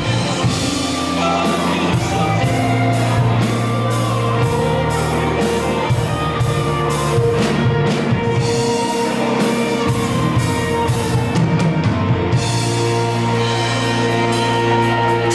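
Live band playing an instrumental passage of a rock-style worship song: a drum kit keeping a steady beat under held chords from electric guitar, bass and keyboards.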